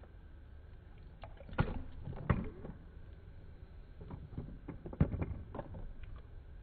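Bathwater sloshing in a tub as small toy cars and trains are dropped in. A few sharp knocks, loudest about one and a half, two and a quarter and five seconds in, as the toys land.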